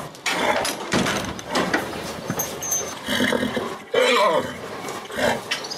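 Horse in its stable box making vocal sounds, amid a run of short knocks and clicks; about four seconds in comes a short call that wavers in pitch.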